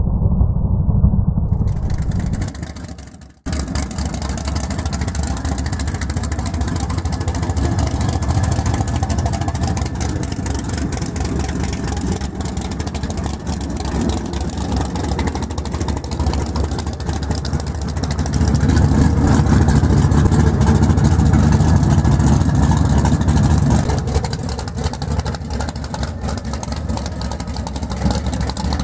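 Opens with a muffled, thin recording of the Plymouth Satellite at full throttle on the drag strip, fading out after about three seconds. Then the car's naturally aspirated 440 big-block V8 with a 1050 carburettor runs at idle through its side-exit exhaust. Partway through it is held at higher revs for about six seconds, then drops back.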